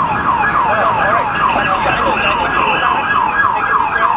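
Emergency vehicle siren in a fast yelp: rapid falling sweeps repeating about four to five times a second, steady and continuous.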